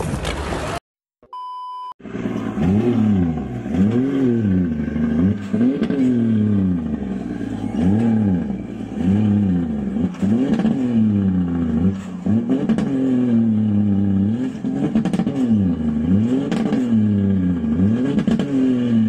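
Heavily laden truck's diesel engine revving up and down over and over, about once a second, labouring as it tries to move the load.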